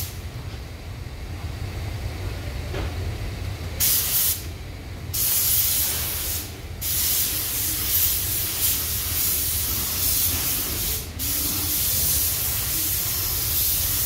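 Gravity-feed spray gun hissing in passes as primer filler goes onto the car's panel in a light first coat. The hiss starts about four seconds in and stops briefly between passes.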